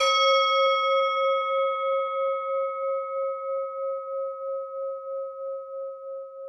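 Meditation singing bowl struck once and left to ring, its tone slowly fading with a steady wavering pulse, marking the end of the meditation practice.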